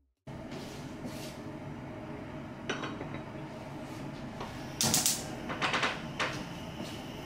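A gas hob's spark igniter clicking in quick runs, about two-thirds of the way in, as the burner under a saucepan of water is lit. Before that comes a short clatter of metal, the pan knocking on the cast-iron grate.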